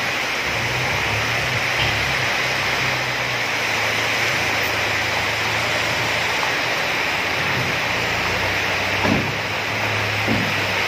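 Heavy rain hissing steadily, with the low steady hum of a diesel dump truck's engine running under it while the bed is tipped. Two brief dull knocks come near the end.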